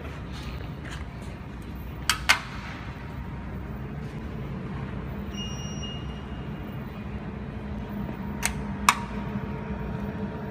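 Desktop jewelry laser welding machine being switched on: two pairs of sharp switch clicks, about two seconds in and again near the end, and a brief high beep midway, over the steady hum of the machine running, which grows a little louder after about four seconds.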